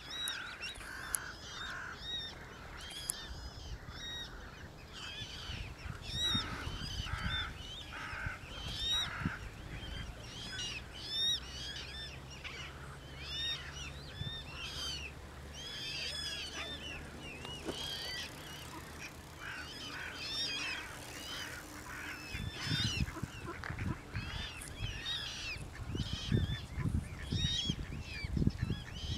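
Mute swan cygnets peeping, a steady stream of short, high, thin calls several times a second. There is low rumbling in the last few seconds.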